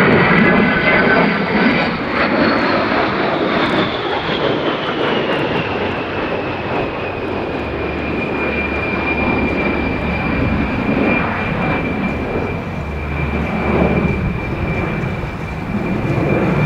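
The twin General Electric TF34 turbofan engines of an A-10 Thunderbolt II in flight, a high whine over a broad rumble. A couple of seconds in, the whine falls in pitch over several seconds as the jet passes, then holds at a steady lower pitch as it draws away.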